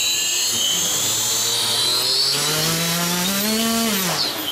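Predator 37 electric sustainer motor and propeller running on a ground test: a high electric whine over a propeller hum. The hum climbs in pitch for a couple of seconds as the motor speeds up, then drops quickly near the end.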